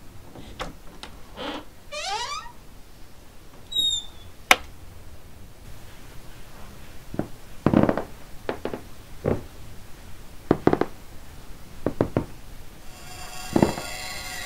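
Scattered creaks, squeaks and sharp knocks in a quiet room, including a stepped rising squeak about two seconds in. Heavier knocks come between about seven and fourteen seconds, and a low held music drone enters near the end.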